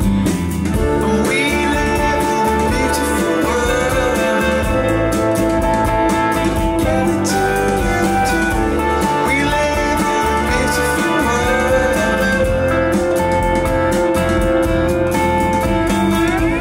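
Music: a guitar-led song.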